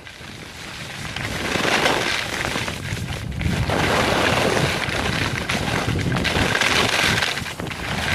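Skis sliding and scraping over snow with wind rushing over the microphone during a downhill run, the rushing noise dipping briefly near the start, about three seconds in, and near the end.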